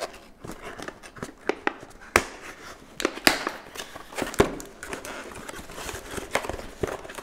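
Cardboard product box being opened by hand: an end flap pulled open and the inner box worked out, giving irregular sharp cardboard snaps and clicks with rustling and scraping between them.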